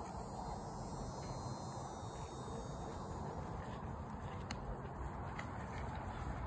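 Steady outdoor background noise with faint insect buzzing, and a single small click about four and a half seconds in.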